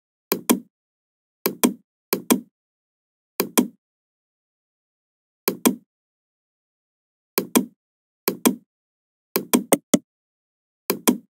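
Computer mouse button clicks. Each is a quick press-and-release pair, about nine in all at uneven intervals, with a faster run of clicks near the end and complete silence between them.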